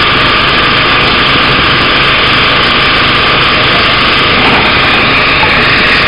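Fishing boat's engine running steadily under a loud, constant hiss of water spraying from the deck sprinklers.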